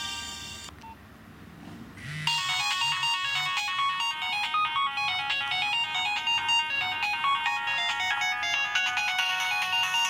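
Nokia 2310 ringtone playing through the phone's small built-in speaker. One tune stops under a second in, and after a short pause another tune starts about two seconds in: quick, bright electronic notes that run on.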